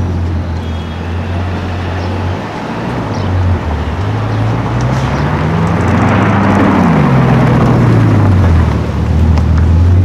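A supercar engine at a low idle that revs up smoothly, its pitch peaking about six and a half seconds in, then falls back to idle.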